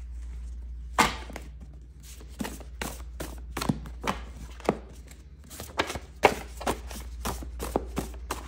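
A deck of message cards being shuffled and handled: a run of sharp, irregular card taps and slaps, over a low steady hum.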